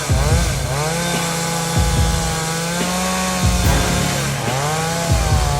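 Two-stroke chainsaw cutting into a large tree trunk, its engine pitch dipping under load and climbing back about every second and a half.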